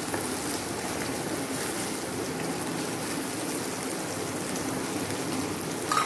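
Chopped onions frying in hot oil in a nonstick kadai: a steady sizzling hiss, with a short clink near the end.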